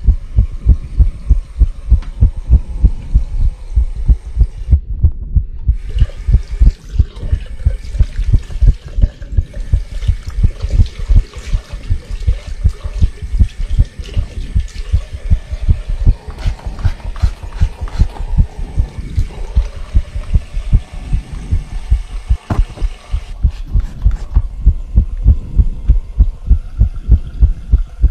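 Heartbeat sound effect: loud, evenly spaced low thumps in a quick, steady rhythm. Beneath it, a fainter hiss of running water comes in a few seconds in and drops away near the end.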